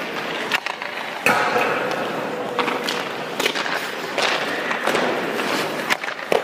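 Hockey skate blades scraping and carving on rink ice as a goalie shuffles across the crease, broken by about half a dozen sharp knocks of stick and puck that ring in the arena.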